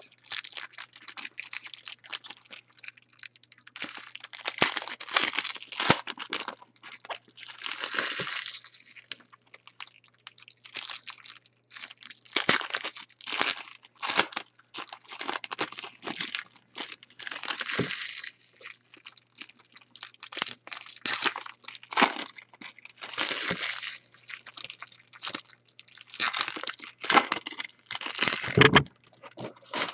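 Foil trading-card pack wrappers crinkling and tearing open in the hands, in many irregular bursts of rustling, with a few louder rips.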